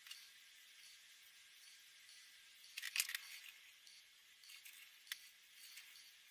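Faint rubbing strokes of a Winsor & Newton ProMarker alcohol marker drawing on paper, with a short cluster of sharp clicks about three seconds in and single clicks near the start and about five seconds in.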